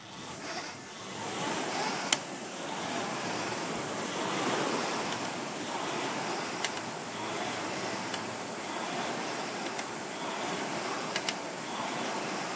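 Concept2 rowing machine being rowed hard from a standing start: the air-resistance flywheel fan makes a steady rushing whoosh that builds over the first second or so. A few sharp clicks come through the whoosh.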